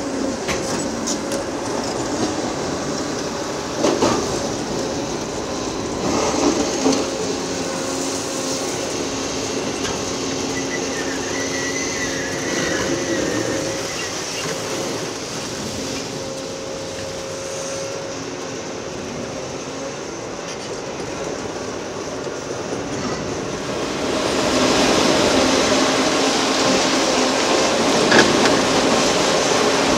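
Caterpillar 390F L hydraulic excavator working a Hydraram HCC-95V concrete crusher: engine and hydraulics running steadily with a whine, under crunching and scraping of concrete and steel. Knocks come about four and seven seconds in and near the end, and the noise gets louder from about twenty-four seconds in.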